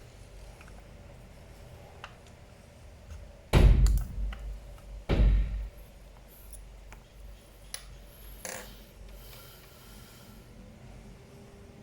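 Two heavy thumps about a second and a half apart, with a few light clicks and a brief scrape: handling noise from working on a laptop.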